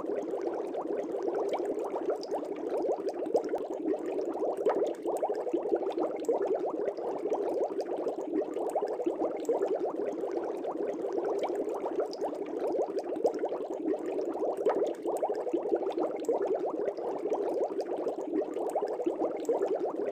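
Aquarium bubbles: a steady, dense bubbling of many small bubbles that never pauses.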